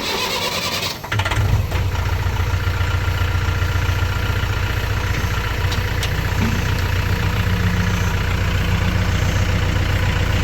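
Tractor engine cranked by its starter for about a second, catching and settling into a steady idle.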